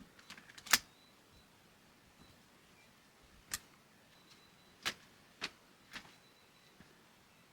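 Scattered sharp clicks and knocks, quiet: a quick cluster in the first second, then four single knocks spread over the rest.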